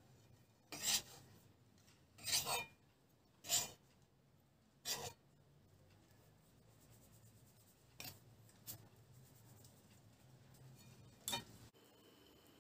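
Flour-dredged pieces of pork liver shaken in a metal mesh sieve to knock off excess flour: four short shakes about a second and a half apart, then a few fainter clicks.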